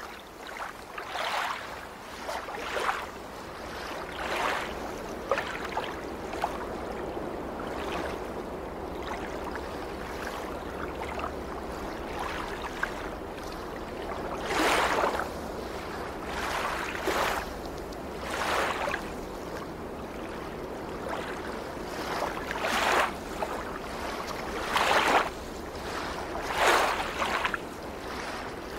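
Small waves lapping and splashing against a rocky shore, a short rush of water every second or two over a steady hiss. The splashes are stronger in the second half.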